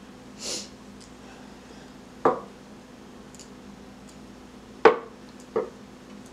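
Chopsticks knocking against a ceramic bowl while noodles are lifted into it: three sharp clinks with a brief ring, about two, five and five and a half seconds in, the middle one loudest. A short soft hiss comes near the start, over a faint steady hum.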